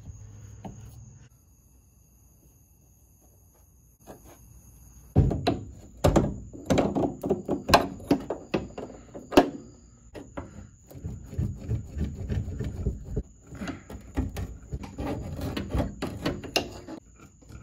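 Hand tools working rusty leaf-spring shackle nuts and bolts: a dense run of irregular metal knocks and clicks starting about five seconds in, with several louder thunks among them.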